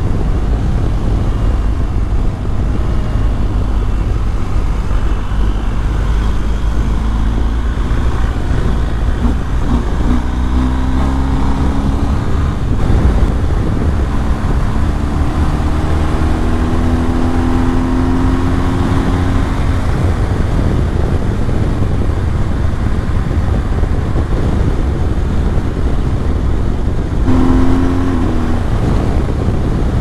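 BMW R 1250 GS boxer-twin engine pulling hard at highway speed under heavy wind rumble, heard from the rider's seat. The engine note climbs steadily for several seconds around the middle, as the bike accelerates to about 125 km/h.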